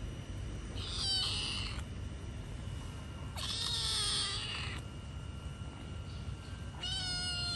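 Tortoiseshell cat meowing three times, high pitched calls of about a second each, the middle one the longest.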